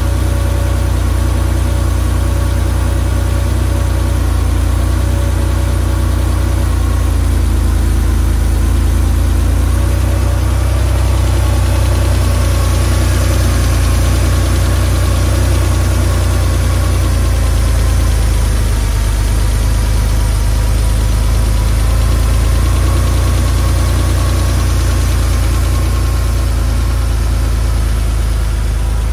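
1984 Porsche 911 Carrera's air-cooled 3.2-litre flat-six idling steadily, heard close to the engine with the rear lid open.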